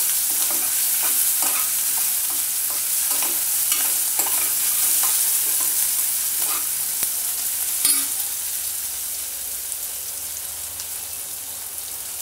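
Chopped green chillies and garlic sizzling in oil in an aluminium kadhai while a steel spoon stirs and scrapes them in short strokes. The sizzle slowly dies down with the gas turned off, and there is one sharp metallic clink about eight seconds in.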